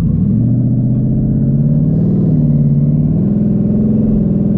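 Twin-turbocharged Coyote 5.0 V8 of a 2019 Ford Mustang GT running at road speed with its cat-back exhaust removed, heard from inside the cabin. It is a really loud, deep exhaust drone whose pitch rises and falls a little with the throttle.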